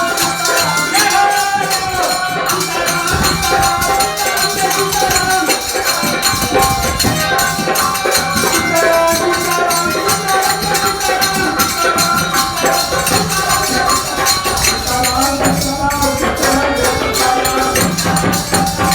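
Kirtan music: devotional chanting over fast, steady rattling jingle percussion, cutting off abruptly at the end.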